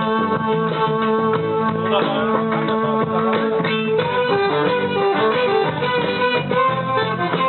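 A small band playing live in rehearsal, with guitar to the fore over other instruments holding steady notes.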